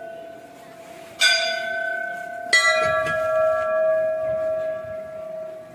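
Hanging brass temple bell ringing, struck twice about a second and a quarter apart, each strike ringing on with several overtones and slowly fading.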